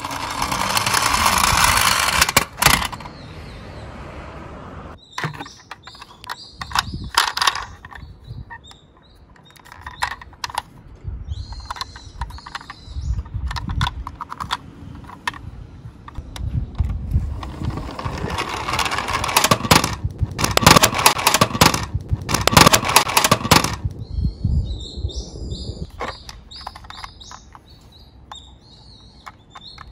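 Toy minicars rolling down a slope track, with rattling rolling runs and many sharp clicks and knocks. The loudest runs come at the start and again for several seconds past the middle.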